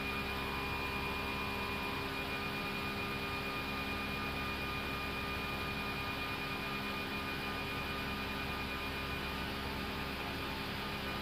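Steady background hum on the flight deck of an Airbus A320 in the climb: an even hiss with several steady tones underneath, unchanging throughout.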